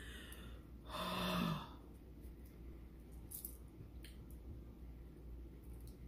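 A woman's short breathy sigh, voiced at a low steady pitch, about a second in, then low room tone with a few faint clicks.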